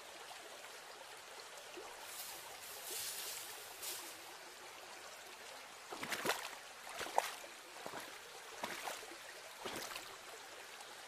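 Footsteps splashing through a shallow rocky stream, four or five steps about a second apart from about six seconds in, over the faint steady rush of the flowing water.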